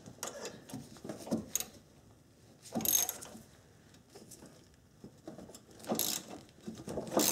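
Wrench and hex key working the nut on a 2010 Subaru Impreza's front stabilizer link, making short bursts of metal clicking and rattling. The loudest bursts come about three seconds in and again about six seconds in.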